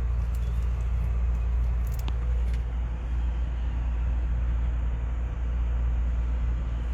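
Steady low mechanical hum with an even, unchanging level, and a few faint clicks about two seconds in.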